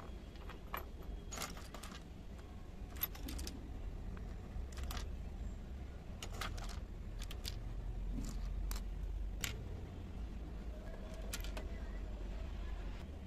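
Small hard plastic and ceramic miniature kitchen pieces clicking and tapping as they are picked up and set down on a wooden table, scattered light knocks about once a second, over a low steady rumble.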